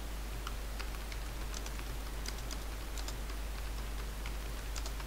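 Computer keyboard typing: irregular, quick key clicks as a short phrase is typed, over a steady low hum.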